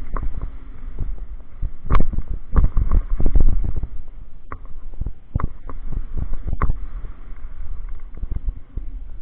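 Downhill mountain bike riding a rough dirt trail: a steady low rumble of wind and tyres on the mount-camera microphone, broken by sharp clatters and knocks as the bike hits bumps and rocks, most of them in the first seven seconds.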